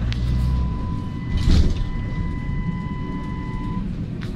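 Trolleybus cabin noise while riding: a steady low rumble with a thin, steady high whine that stops near the end, and a brief louder rush about a second and a half in.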